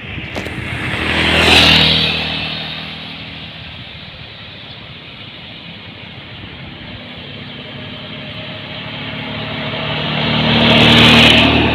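Two motor vehicles driving past, one about two seconds in and another near the end, each growing louder and then fading away.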